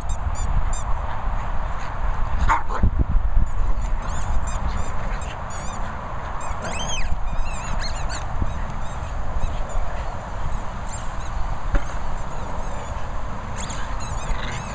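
An American Bulldog and a Staffordshire Bull Terrier play-fighting over a rubber toy, with dog growls and a short louder vocal sound about two and a half seconds in, over a steady low rumble. High, short chirps come and go throughout.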